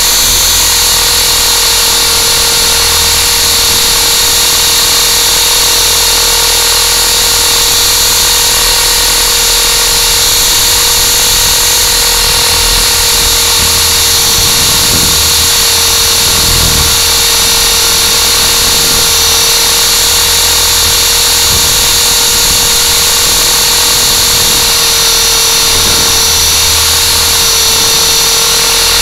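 Electric motor and propeller whine of a small RC aircraft in hover, picked up close by its onboard camera's microphone. It is a loud, steady whine whose pitch holds nearly constant.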